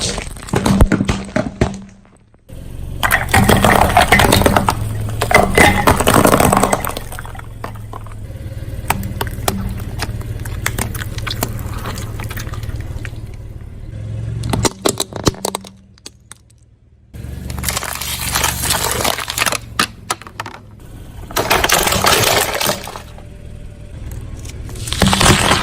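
A car's tyre rolling over and crushing brittle objects, in several bouts of crackling and crunching with sharp snaps, over the car's engine running low. The sound drops out briefly twice between bouts.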